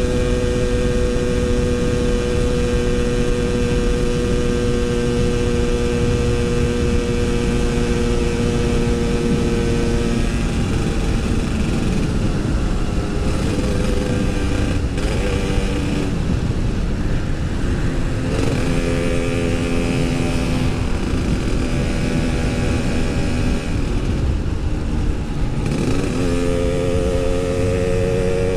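Yamaha RX-King 135cc two-stroke single-cylinder engine running under way at steady revs. About ten seconds in, the note drops and wavers as the revs change. It steadies again, then climbs in pitch near the end.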